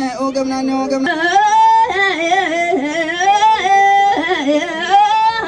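Amharic fukera-style heroic chant sung into microphones: a man's voice holds a low note, then a woman's higher voice takes over about a second in with long, wavering, ornamented held notes.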